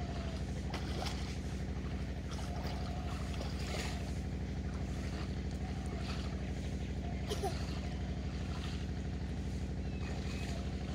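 An engine running steadily at a constant speed, an even low hum.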